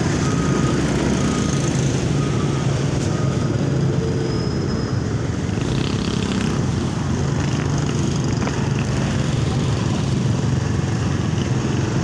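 Motorcycle engine running in slow, congested traffic: a steady low drone, with the noise of the cars, trucks and other motorcycles around it.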